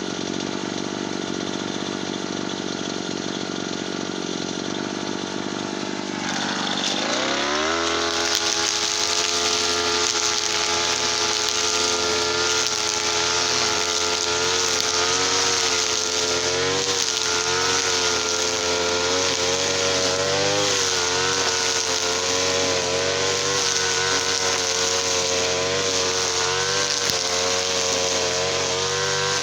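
Small TL33 two-stroke petrol engine idling evenly, then revving up about six seconds in and running at high speed. The pitch wavers up and down under the throttle.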